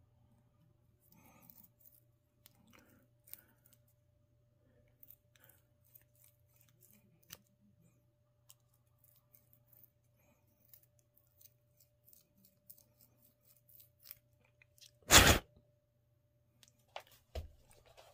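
Faint small clicks and scrapes of fingers and a thin metal tool working at a fishing rod's small tip-top guide, cleaning it out, over a low steady hum. About 15 seconds in comes one loud, short knock-and-rustle, and a dull thump follows a couple of seconds later.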